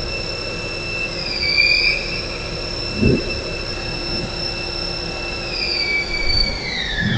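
CNC lathe turning a 1045 steel bar under flood coolant: a steady high whine with a second, higher tone above it, over the hiss of coolant spray. The whine dips briefly about a second and a half in, and there is a dull thump about three seconds in. Near the end the whine glides down in pitch.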